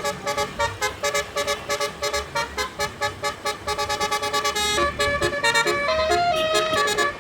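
Bus-mounted basuri electric air horn playing a telolet melody: rapid staccato toots at first, then longer held notes of changing pitch from about five seconds in.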